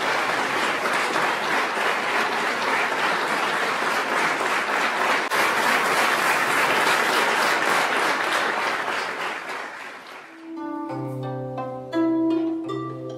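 Audience applauding steadily for about ten seconds, then cut off by plucked-string music: separate ringing notes over a low held note.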